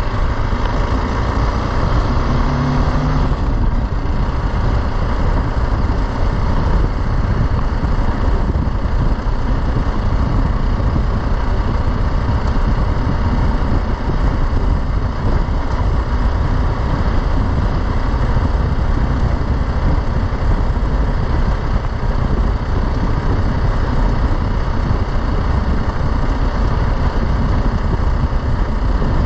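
BMW G310 GS single-cylinder engine running steadily while the motorcycle rides along a dirt track, under heavy steady wind noise on the microphone.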